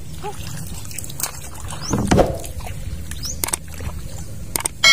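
Water sloshing and trickling against a wooden canoe on a river, with a louder swash about two seconds in and a few light knocks on the boat later. A few small bird chirps, and a bright ringing ding starts right at the end.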